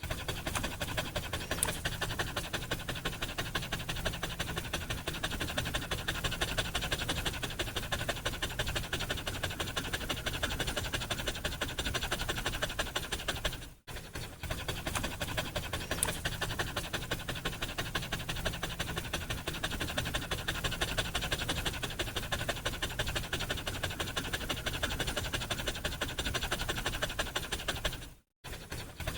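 A dog panting fast and hard, a steady run of rapid short breaths in and out. The panting breaks off briefly twice, about halfway through and near the end.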